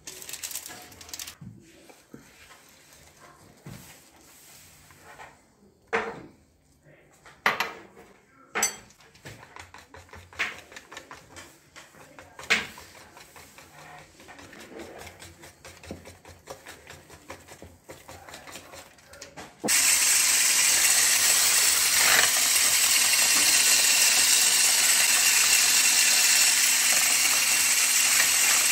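Electric hand mixer switched on about two-thirds of the way in, running steadily at one speed as its beaters whip chocolate cake batter in a bowl. Before it starts there are scattered light knocks and taps against the bowl as the dry ingredients are stirred in.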